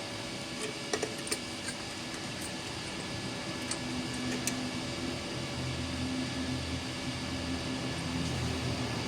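Steady machine hum with a few light clicks about a second in; a lower hum builds up from about halfway through.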